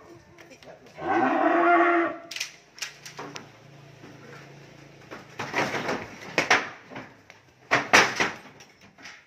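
A cow mooing: one long call about a second in. After it come scattered sharp knocks and clatters, the loudest near the end.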